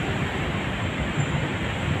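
Steady road traffic noise: a continuous rumble and hiss from passing vehicles.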